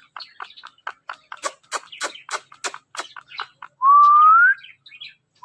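Ring-necked parakeet making a rapid series of short clicks and chirps, about four or five a second, then one loud rising whistle near the end.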